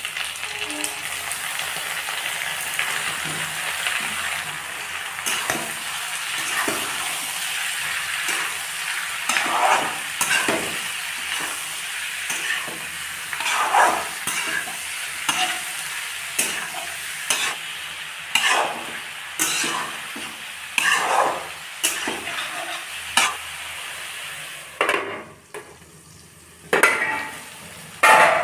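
Pork intestine sizzling as it fries in hot oil in a wok. A metal spatula scrapes and turns it in repeated strokes, about one a second for most of the time, with a short pause near the end.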